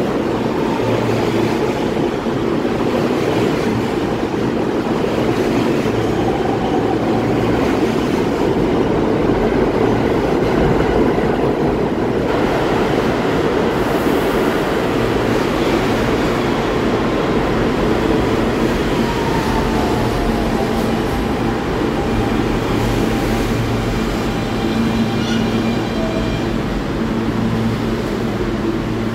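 R160B subway train running along the platform with a steady loud rumble of wheels on rail, slowing to a stop. Faint whines from its electric traction motors come through in the second half.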